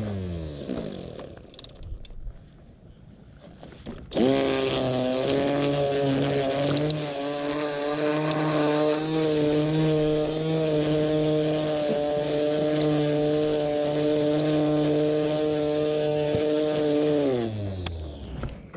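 Greenworks 40V cordless string trimmer's electric motor and spinning line: it winds down at the start, starts again sharply about four seconds in, runs steadily for about thirteen seconds, then winds down with falling pitch near the end. The new trimmer line is still not feeding out properly.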